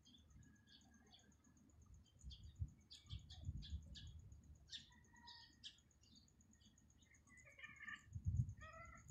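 Small birds chirping in short, repeated high calls, over a faint steady high ticking. Low rumbles come in about three seconds in and again near the end.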